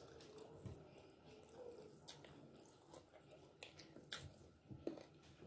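Faint chewing and wet mouth sounds of a person eating chicken, with a few soft clicks scattered through an otherwise very quiet stretch.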